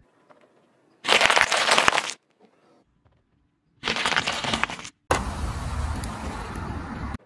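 A car tyre rolling over a pile of snap pea pods and crushing them with crackling crunches, in two loud bursts: one about a second in and one about four seconds in. Then a tyre rolling over gritty asphalt starts suddenly, a low rumble with crackling that stops just before the end.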